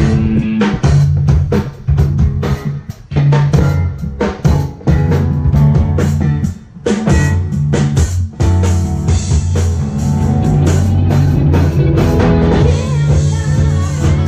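Live band playing an instrumental passage: drum kit with rimshots and bass drum over a bass line, with guitar and keyboard. The band drops out briefly about seven seconds in, then comes back in with held chords and a wavering melodic line near the end.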